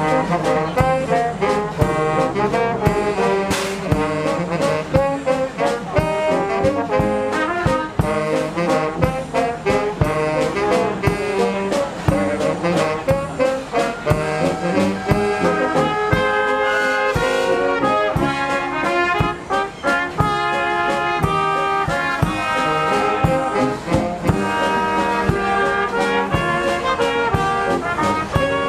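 Brass music: trombones and trumpets play a tune over a steady drum beat.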